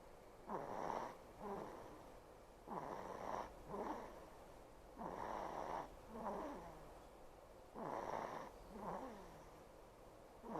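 A two-month-old baby girl snoring in her sleep, four times. Each snore is a noisy rasp of under a second, followed by a shorter, fainter sound, about every two and a half seconds. The parent takes it for mucus still left at the back of her nose.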